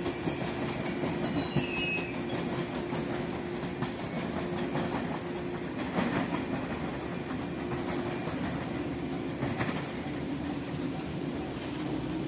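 A JR 381-series tilting electric express train running away from the platform, a steady rumble of wheels on rail with a few scattered clicks as it crosses rail joints.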